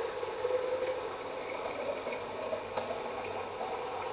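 Kitchen tap running water into a plastic bowl, a steady rush of filling water.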